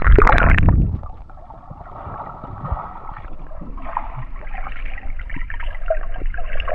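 Lake water sloshing and splashing close by, with a loud rumbling burst on the microphone in the first second.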